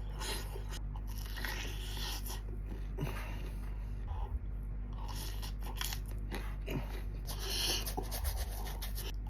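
Close-miked eating of fried cireng: irregular bites, crunching and chewing, over a steady low electrical hum.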